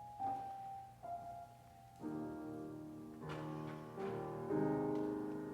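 Piano playing softly: a slow single-note melody, then fuller chords from about two seconds in.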